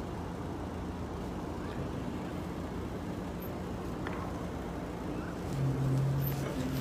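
A car driving, with steady engine hum and road noise. A louder low engine drone swells for about a second near the end.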